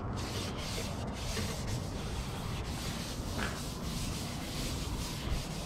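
Tack rag wiping over the sanded fiberglass hood of a Factory Five Type 65 Daytona coupe in repeated strokes, a steady rubbing hiss, to lift dust before priming.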